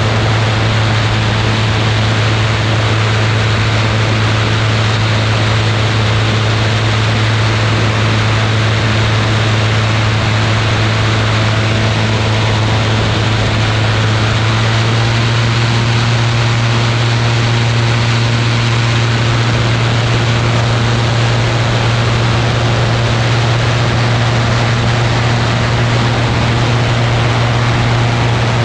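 Ultralight aircraft's engine and propeller droning steadily in flight, with heavy wind rush over the microphone; the engine note rises slightly about halfway through.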